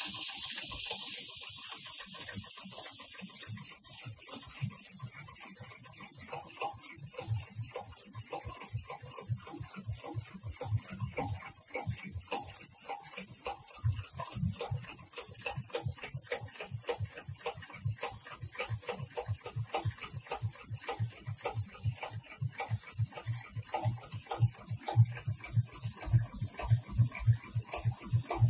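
HighTex 71008R heavy-duty programmable bar tacking machine sewing a zigzag bar tack through thick climbing rope: a fast, even run of needle strokes over a steady hiss of compressed air from the needle cooler nozzle. A few louder knocks come in near the end.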